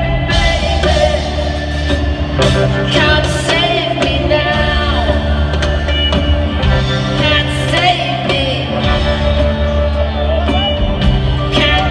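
A live rock band playing in an arena, heard from the audience: a female lead vocal sings long, wavering lines over held bass notes and guitar.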